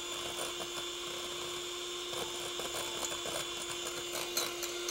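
Small electric hand mixer running at a steady pitch, its twin beaters whipping egg yolks in a glass bowl, with scattered light clicks. This is the preliminary beating that brings the yolks up thick and sticky before oil goes in for mayonnaise.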